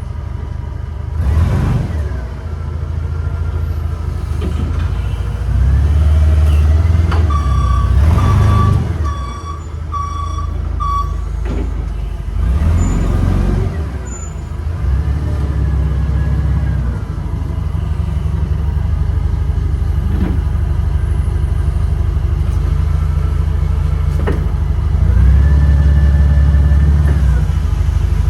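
Heavy machine's engine running and revving up and down, with several rushing surges of noise. A backup alarm beeps five times about a quarter of the way in.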